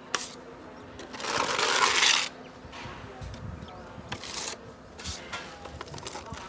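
Steel trowel scraping wet wall texture compound off a hand plate and across a rendered wall. It makes short scrapes, with one longer, louder scrape about a second in that lasts about a second.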